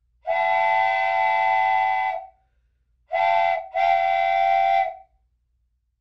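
Steam train whistle blowing three times: one long blast, then a short blast and a second longer one.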